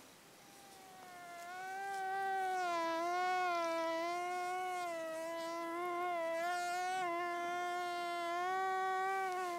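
Mosquito whine, an added sound effect: a buzzing hum with many overtones that wavers slightly in pitch. It fades in over the first two seconds, then holds.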